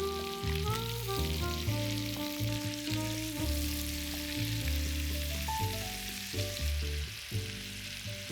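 Food sizzling as it fries in a pan, a steady hiss, under background music with a melody.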